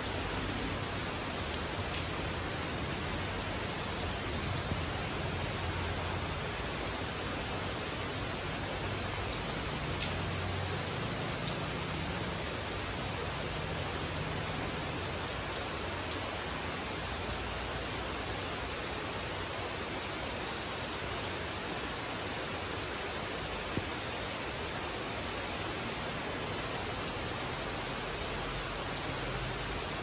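Steady rain falling on rainforest foliage: an even hiss with scattered drops ticking, and a faint low rumble underneath for the first dozen seconds.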